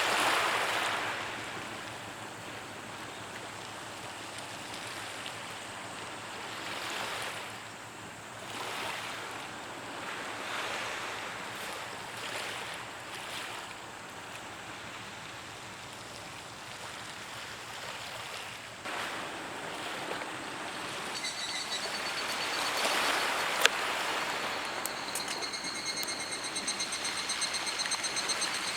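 Waves washing on a beach, a hiss that swells and fades every couple of seconds. Near the end a fast, even, high-pitched ticking sets in, with one sharp click shortly before.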